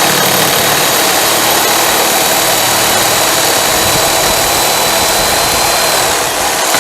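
A power saw running steadily with a high whine while cutting a solid steel bar, its blade dull. Near the end the whine starts to fall as the motor winds down.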